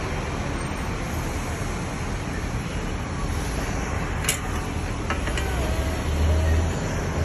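Bus interchange ambience: a steady low rumble of buses and traffic, swelling slightly near the end. A sharp click about four seconds in is the phone being handled.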